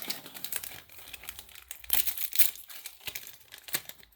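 Foil booster pack wrapper crinkling as it is torn open by hand, a run of irregular crackles loudest about two seconds in.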